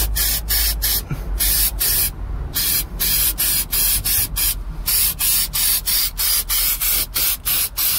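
Aerosol can of rust treatment sprayed in quick short hissing bursts, a few a second, with brief pauses between them.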